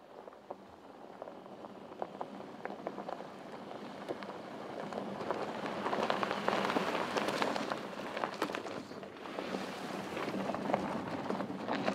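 Tyres of a Porsche Cayenne SUV crunching over loose gravel and stones, with many small stones crackling and ticking. It swells as the vehicle passes close by about halfway through, eases off, then rises again near the end.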